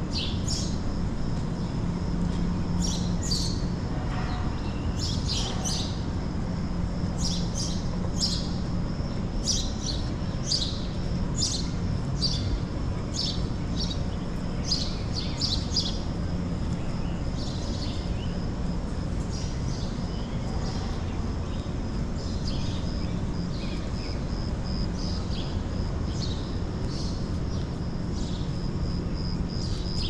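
Birds chirping: many short, high chirps, thickest in the first half and fainter later, over a steady low background hum.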